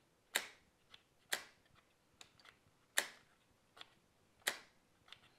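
HO-scale model railroad turnout controls being flipped and tapped, with the powered turnouts snapping over. Four sharp clicks come roughly a second or more apart, with fainter ticks between them.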